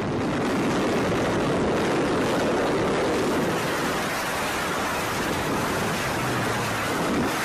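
Steady, even rushing noise of a wind sound effect, like air rushing past in freefall.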